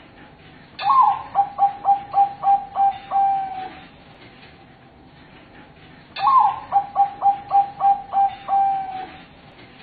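Zebra dove (perkutut, Bangkok song-bred line) singing: two phrases, each a higher opening note followed by a quick run of short coos that ends in a longer drawn-out note.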